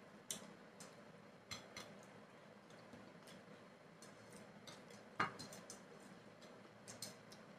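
Faint, scattered eating sounds: small clicks and clinks of eating rice and curry off a plate, with one sharper knock about five seconds in.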